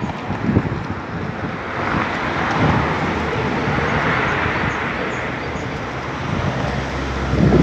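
A vehicle passing on the street: a hiss of road noise that swells to a peak about four seconds in and then fades, with low knocks of wind or handling on the microphone near the start and end.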